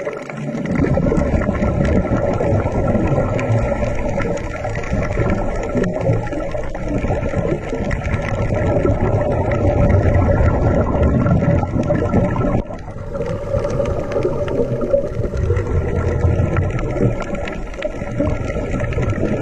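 Underwater ambience: a steady, muffled rumble and gurgle of water with a constant hum running through it, dipping briefly about two-thirds of the way through.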